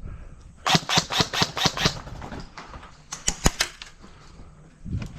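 Airsoft gun firing: a quick string of about seven shots, about five a second, then three more shots a couple of seconds later.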